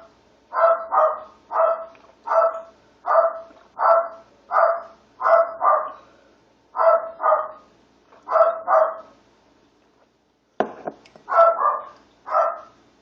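A dog barking over and over in short sharp barks, often in quick pairs, with a pause of about a second and a half near the end before it starts again.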